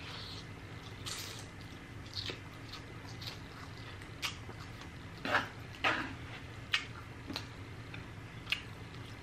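Close-up wet mouth sounds of eating spicy noodles: slurping, chewing and lip smacks, heard as scattered short clicks and squishes about once a second, the loudest a little past halfway.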